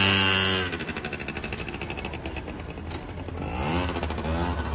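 A small engine running at high revs drops back about half a second in to a fast, even pulsing beat, then revs up again near the end.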